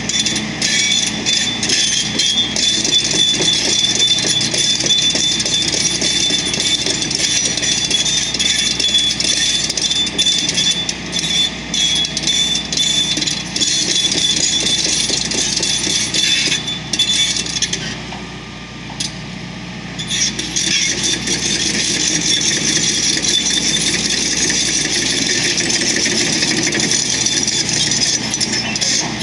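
Roadworks machinery running: a steady, loud mechanical din with a high whine, easing off briefly about eighteen seconds in before picking up again.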